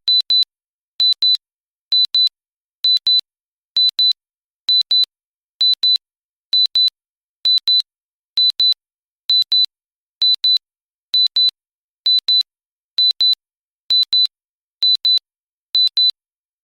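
Digital timer alarm sounding: high-pitched electronic double beeps, beep-beep, repeating evenly about once a second, signalling that the countdown has reached zero.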